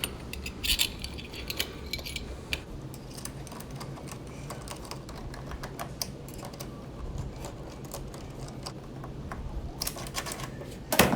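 Light metallic clicks and rattles of a door knob's parts being handled, fitted together and screwed through the door, with a cluster of clicks about a second in and a louder clack just before the end.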